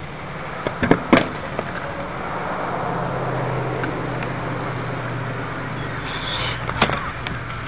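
Stunt scooter clacking twice against a concrete ramp about a second in, with a steady low hum and another sharp knock near the end.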